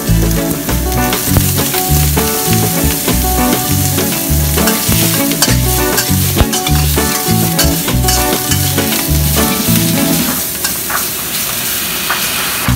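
Pork pieces sizzling as they fry in oil in a stainless steel wok, stirred and scraped with a spatula, with sharp clicks of the spatula against the pan. Background music with a steady beat plays underneath and drops out about ten seconds in.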